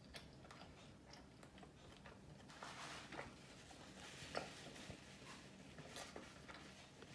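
Faint chewing of KFC fried chicken, with scattered small mouth clicks and a slightly louder crunchy stretch about three seconds in.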